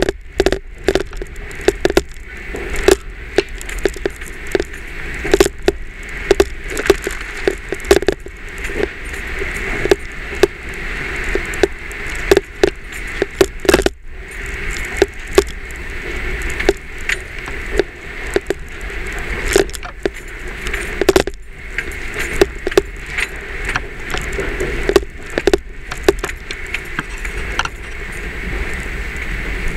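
A camera tapping and rattling against a vehicle's front windshield in a rapid, irregular chatter of sharp clicks, over the low rumble of the Jeep driving slowly over rough, rocky ground.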